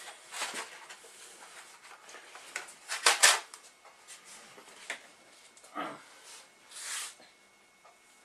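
Rustling and knocking handling sounds as a foil tray of tortilla chips is set down on a glass table beside a blender, loudest about three seconds in, with further scattered rustles afterwards.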